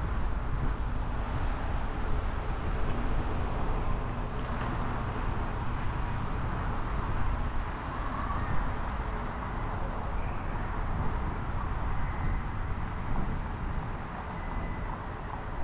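Car driving in city traffic: a steady low rumble of engine and tyre noise with a haze of road noise over it.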